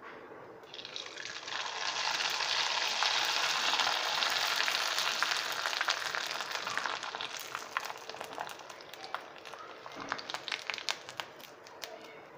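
Dried wheat kurdai sizzling in hot oil in a kadai as they are deep-fried. The sizzle starts strongly about a second in and settles after several seconds into scattered crackling pops.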